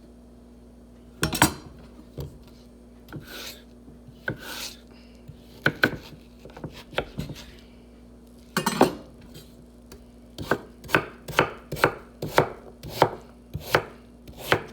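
Knife chopping potatoes on a cutting board: scattered knocks at first, then from about ten seconds in a steady run of chops, roughly two a second.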